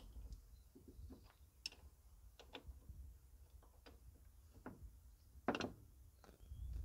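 Scattered light clicks and taps of hands working on battery cables and terminals in the excavator's battery compartment, the loudest a short cluster about five and a half seconds in, over a faint low rumble.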